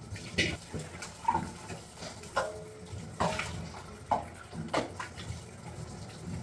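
Tap water running while steel utensils are washed at a kitchen sink, with clinks and knocks of metal about once a second, a few ringing briefly.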